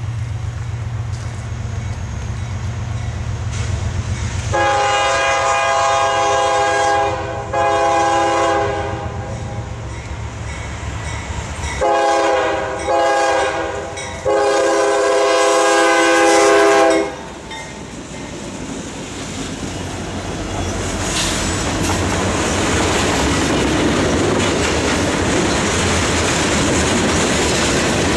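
CSX freight train led by a GE ES40DC diesel locomotive approaches with its engines rumbling. Its multi-note horn sounds the grade-crossing signal: two long blasts, short ones, then a final long blast cut off about 17 seconds in. The locomotives then pass, followed by freight cars rolling by with rising wheel clatter.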